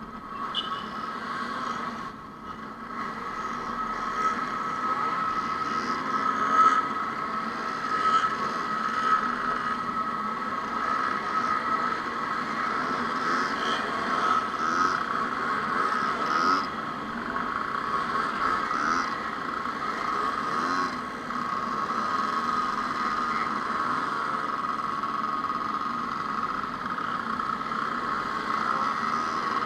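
Two-stroke engines running steadily, with a constant high-pitched whine and some rising and falling engine notes underneath.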